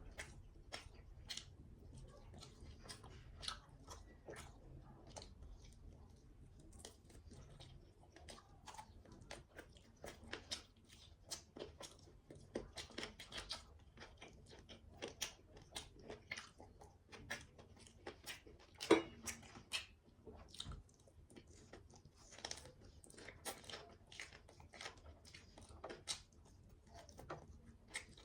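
A person chewing and eating food close to the microphone: a steady, irregular run of short mouth clicks and smacks, with one sharper click about two-thirds of the way through.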